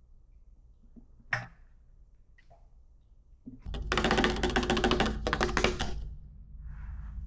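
A single thump about a second in, then a car's fuel filler cap being screwed onto the filler neck, its ratchet clicking rapidly for about two seconds.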